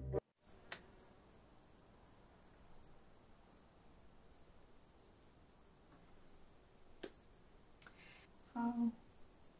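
Faint chirping of crickets: a steady high trill with a regular run of short, high chirps over it, heard through the room. Near the end there is a brief vocal sound, and there are a few faint clicks.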